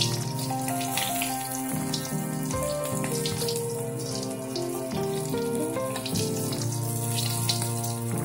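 Salted fish frying in hot oil in a wok, a steady sizzle with many quick pops and crackles, over background music.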